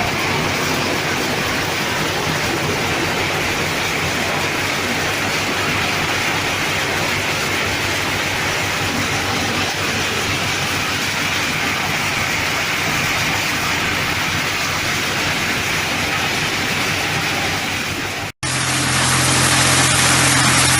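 Cedar-cone processing machine running, a loud steady mechanical noise. About 18 seconds in it cuts off abruptly and a different machine comes in, running with a steady engine hum.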